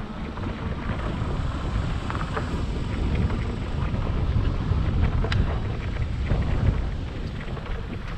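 Wind buffeting the microphone as a steady low rumble, with scattered light ticks and crunches over it.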